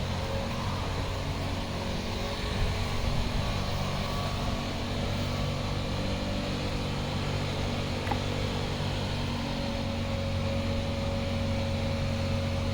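The small gas engine of a Westinghouse WPX3200 pressure washer running steadily at a constant speed while its pump fails to deliver pressure.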